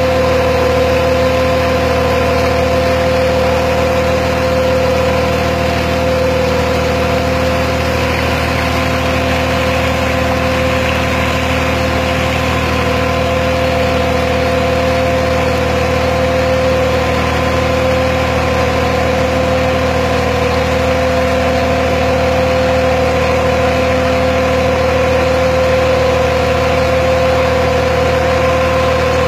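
An engine driving a tubewell pump runs at a steady speed with a constant hum, while water gushes from the discharge pipe.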